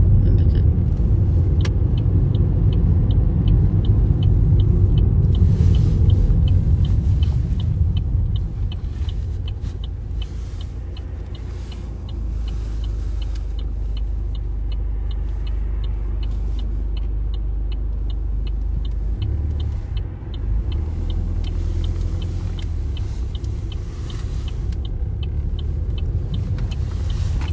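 Car cabin noise: engine and road rumble, loud at first and then quieter and steadier from about eight seconds in as the car slows, with a turn-signal indicator ticking steadily through the turn.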